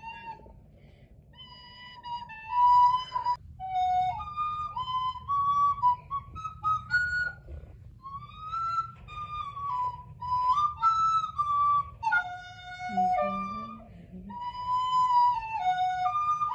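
A recorder playing a simple melody, one held note after another in short phrases with brief pauses between them.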